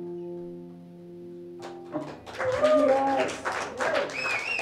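An electric guitar's final chord ringing out and slowly fading. About two seconds in, applause breaks out, with cheers and whoops from the audience.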